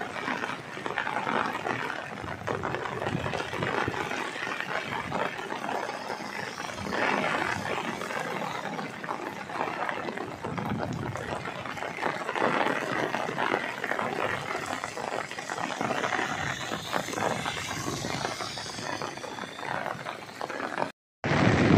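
Heavy rain pouring down on a wet road: a dense, steady hiss that swells and falls in gusts. It breaks off for a moment near the end.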